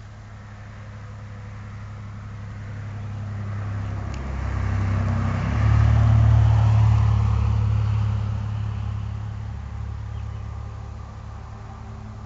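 A motor vehicle passing by: engine and road noise swell to a peak about six seconds in, then fade away.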